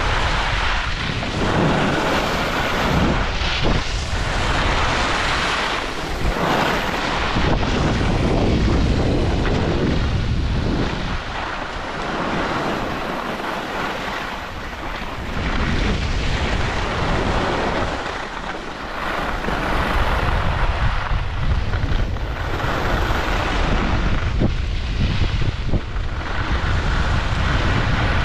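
Wind buffeting a skier's camera microphone at speed, mixed with the hiss and scrape of skis on groomed snow. The noise surges and eases every few seconds.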